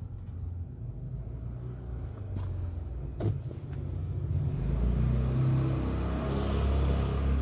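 Low rumble of a motor vehicle's engine, growing louder about halfway through, with a couple of sharp clicks just before.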